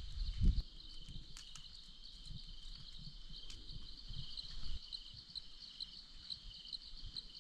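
Insects chirping steadily in a high, even rhythm, about three chirps a second over a continuous fast trill. A low thump sounds about half a second in.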